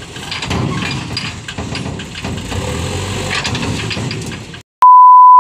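Dump truck's diesel engine running while its raised bed tips out a load of soil, with scattered clattering and cracking as the soil falls. The sound cuts off suddenly, followed by a loud, steady high beep lasting about a second.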